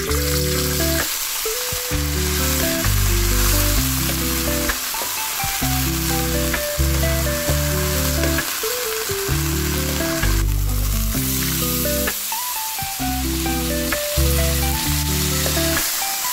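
Diced potatoes sizzling as they fry in hot oil in a pan, stirred with a metal slotted spoon. Background music with a steady stepping melody plays over it.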